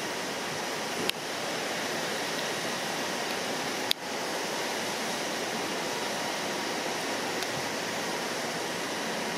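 Heavy rain pouring down in a steady, even hiss. Two brief sharp clicks break through it, about a second in and again near four seconds.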